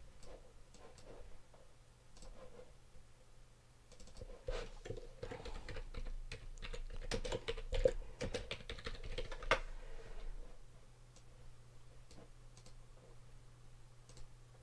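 Typing on a computer keyboard, with clicks: a few scattered keystrokes, then a quick flurry in the middle that thins out again, over a faint low steady hum.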